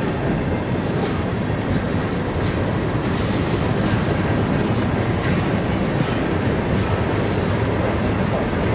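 Freight train's covered hopper cars rolling past close by: steady noise of steel wheels running on rail, with scattered clacks as the wheels cross rail joints.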